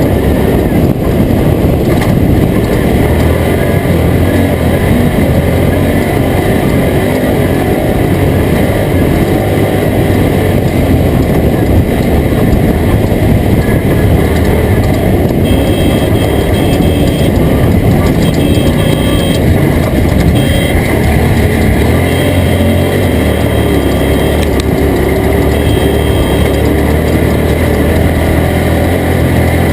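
Toyota Tacoma prerunner race truck driving at race speed, its engine running hard under load with heavy, rough tyre and chassis noise, steady and loud throughout.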